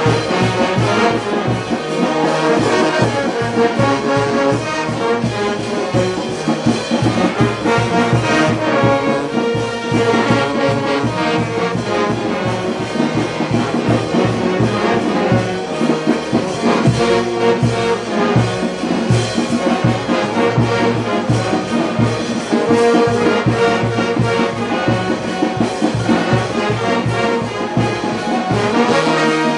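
Full brass band playing: sousaphones and baritone horns carrying the low line, with clarinets and trumpets above, over a steady regular beat.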